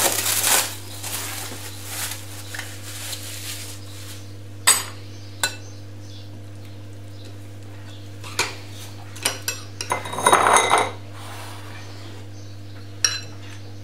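Cling film crinkling as it is pulled off a glass bowl, then a metal spoon and a stainless mesh strainer clinking against glass, with sharp single clinks and a longer stretch of scraping and rattling a little past halfway. A steady low hum runs underneath.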